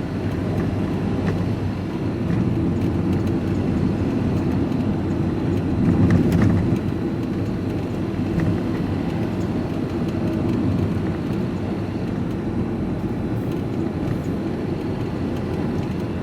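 Steady engine and road rumble inside a moving vehicle's cab, with a brief louder surge about six seconds in.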